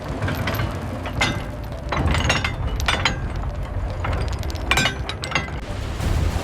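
Irregular clicking and clattering over a steady low rumble, in clusters about a second in, around two to three seconds in, and again near the end.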